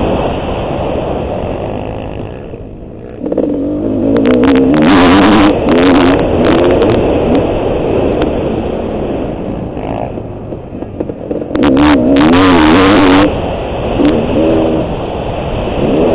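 Service Honda CR500AF's 500 cc two-stroke single revving hard and backing off as the motocross bike is ridden around a dirt track. The throttle drops off about two to three seconds in, then the engine rises again, running loudest about four to six seconds in and again near twelve to thirteen seconds.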